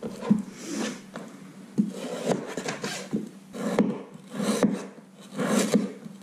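Chef's knife slicing raw moose meat on a plastic cutting board: a series of sawing strokes, the blade rasping through the meat and scraping the board, about one stroke a second.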